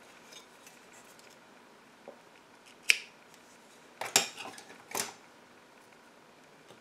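Small scissors snipping yarn ends, a few short sharp snips about three, four and five seconds in.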